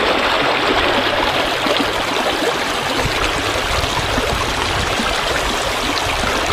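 River water flowing steadily over rocks, a continuous rushing.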